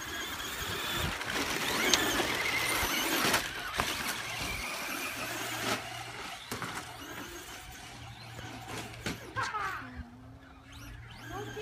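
Radio-controlled cars racing on a dirt track: high-pitched motor and drivetrain whine with tyres scrabbling on loose dirt, loudest in the first few seconds as they pass close and fading somewhat as they run off around the track.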